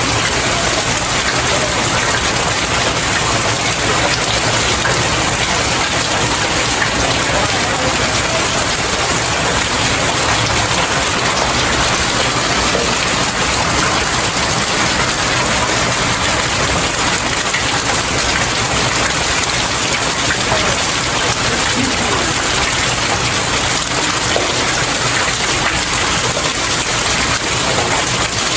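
Steady rain falling on stairs: an even, unbroken hiss of rain with scattered drops striking the steps.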